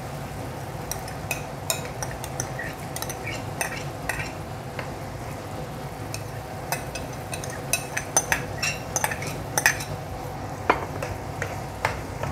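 Steel ladle scraping and clinking against a glass bowl and a wok as split chickpeas (chana dal) are tipped into a cooking masala and stirred, with irregular sharp clinks that come thicker and louder in the second half. A steady low hum runs underneath.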